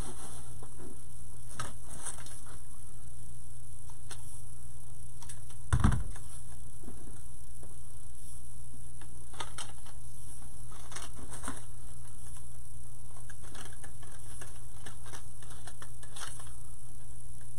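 Scattered light clicks and rattles of plastic ornament picks being handled, with one louder knock about six seconds in, over a steady low hum.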